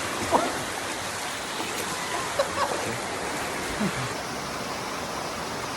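Creek water rushing steadily over rocks in small cascades, an even hiss, with a few faint brief sounds over it.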